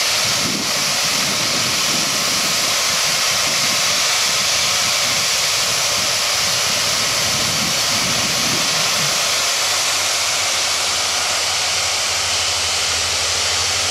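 Marcellus gas well venting: gas rushing out of the well's pipework with a loud, steady hiss, a powerful spray that holds constant throughout.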